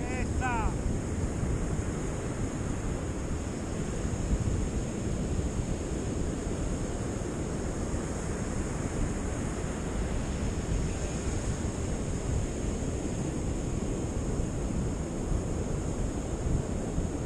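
Steady rush of ocean surf breaking on the shore, with wind buffeting the microphone. A short high-pitched call sounds just after the start.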